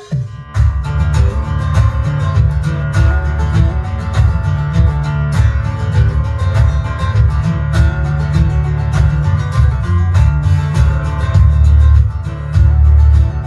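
Song with heavy bass and plucked guitar over a fast, steady beat, played through an Eggel Elite XL 2 speaker for a bass test; the music comes back in strongly about half a second in.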